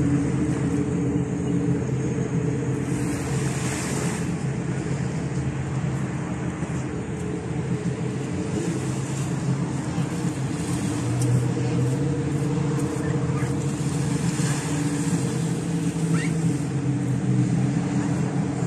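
Personal watercraft and motorboat engines droning steadily offshore, a low, even hum that shifts slightly in pitch. Beneath it runs a hiss of small waves washing on the shore, which swells twice.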